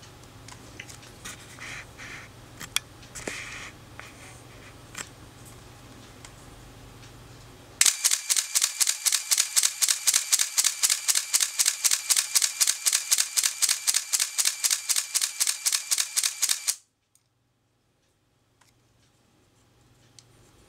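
Nikon F3 camera with its MD-4 motor drive firing a continuous burst: shutter and film advance cycling about four frames a second for some nine seconds, then stopping abruptly. Before the burst, a few small handling clicks.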